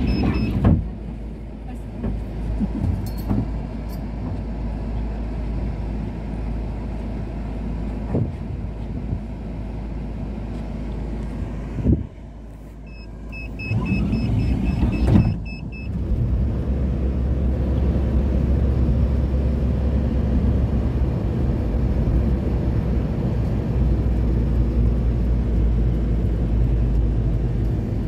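GAZelle minibus engine idling at a stop, heard from inside the cabin. About twelve seconds in there is a thud, followed by a run of short electronic beeps. From about sixteen seconds the engine runs harder and steadily as the minibus pulls away.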